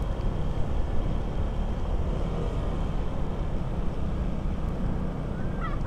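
Motorcycle riding steadily at road speed: a constant low engine drone under wind rush on the rider's microphone.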